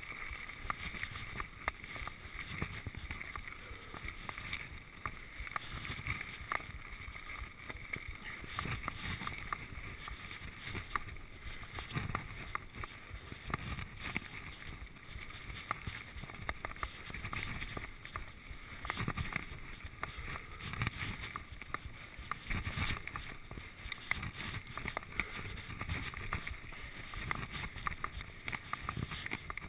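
Giant Trance 1 mountain bike ridden fast over a rough grassy dirt trail: a steady rush of tyre and wind noise, broken all the way through by frequent short knocks and rattles as the bike hits bumps.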